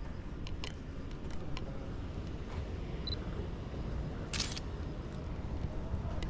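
Camera shutter sound: one short, sharp snap about four and a half seconds in, over steady low outdoor background noise.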